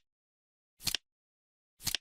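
Countdown timer's tick sound: a short, sharp double click once a second, with dead silence between ticks.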